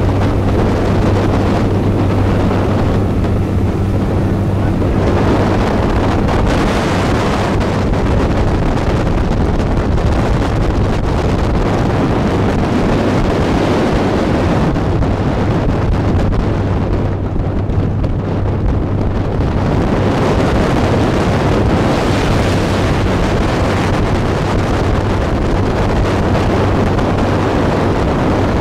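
Long-tail boat engine running steadily at speed, a constant low drone, under wind buffeting the microphone and water rushing past the hull.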